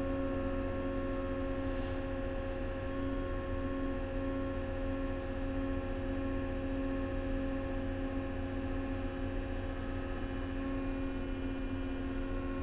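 Cat small wheel loader's diesel engine held at about 1,800 rpm, heard from inside the cab, as the hydraulics raise the loaded bucket through the lift range: a steady, even hum.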